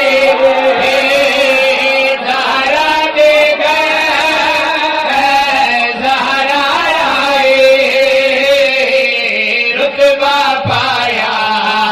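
A man chanting a qasida, a Shia devotional ode, in a strong melismatic voice, drawing out long held notes.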